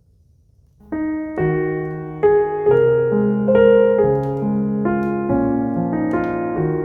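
Near silence for about the first second, then piano music starts, a melody of struck notes over lower chords.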